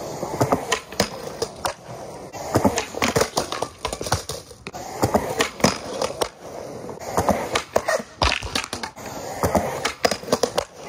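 Skateboard wheels rolling on concrete in several runs, broken by sharp clacks and pops of the board, with the board scraping along the top of a concrete ledge.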